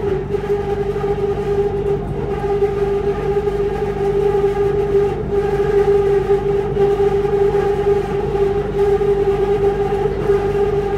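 Siemens EMU A1 Skytrain car running along the track, heard from inside the car: a steady whine from the traction drive over a low rumble, holding one pitch at cruising speed.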